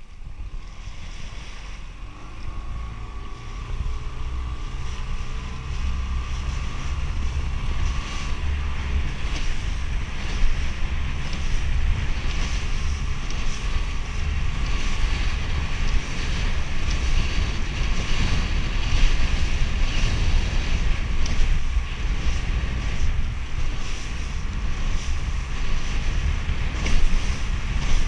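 Wind buffeting the microphone of a motoring inflatable boat, with water rushing and slapping against the hull and the boat's engine running underneath. It grows louder over the first few seconds, then keeps up a gusty rumble.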